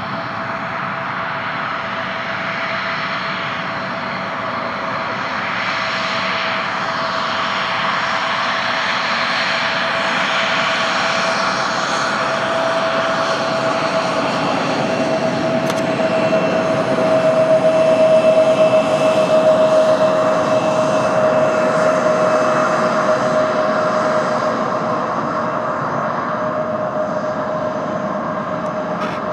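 Bombardier CRJ regional jet's twin rear-mounted turbofans running at taxi power as it rolls past, a steady high whine over a roar. It swells to its loudest a little past halfway, then eases as the jet moves away.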